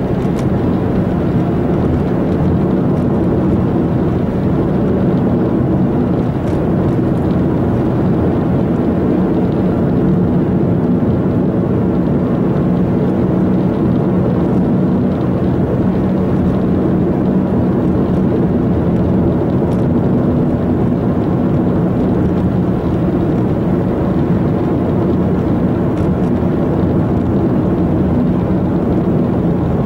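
Steady road noise inside a moving car's cabin: tyre and engine noise at cruising speed, an even rumble with a faint steady low hum.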